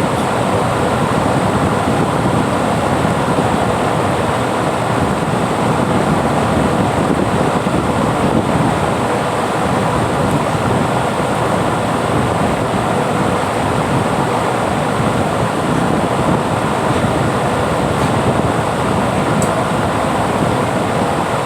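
Electric fan running steadily, its air rushing over the microphone as a loud, even noise.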